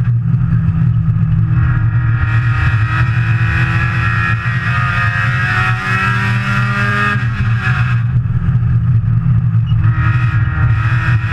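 Saturn S-Series race car's four-cylinder engine running hard, heard from inside the stripped cockpit. Twice it eases off and then picks up again, as the throttle is lifted for the turns and reapplied.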